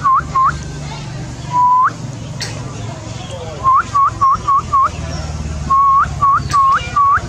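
A series of loud, clear, short whistled calls. Each is a steady note that sweeps up at the end, coming in quick runs of up to five, over a steady low rumble.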